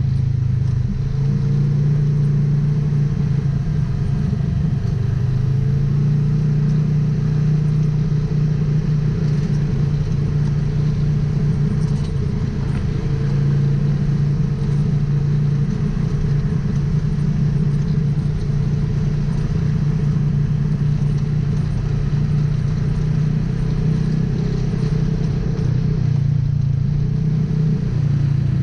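Polaris RZR XP 1000 side-by-side's parallel-twin engine running at a fairly steady speed while driving, its pitch rising and falling only slightly.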